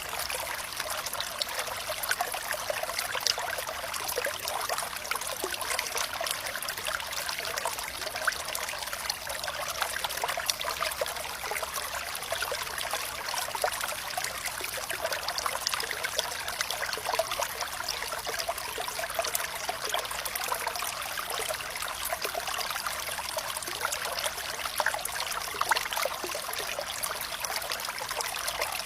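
Running water trickling steadily: a bright, even splashing full of small droplet ticks, with little deep rumble.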